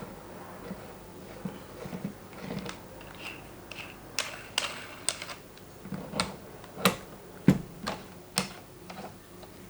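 Irregular clicks and knocks from a fishing line winder's parts being handled and fitted together, with the sharpest knock about seven and a half seconds in.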